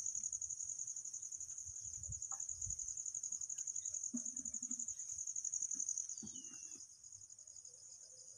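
Field insects chirring in a steady, high-pitched, rapidly pulsing trill, growing somewhat fainter after about six seconds.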